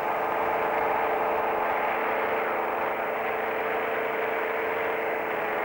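Microlight trike's engine and propeller running steadily in flight, a constant droning tone that holds the same pitch throughout.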